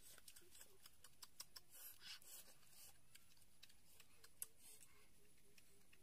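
Near silence, with a few faint scattered clicks and soft rustles and a faint row of short low notes near the end.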